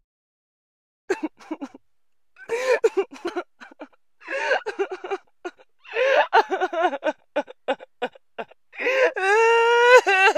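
A high-pitched voice sobbing and moaning in short broken bursts, then near the end a long, wavering wail, the loudest sound here.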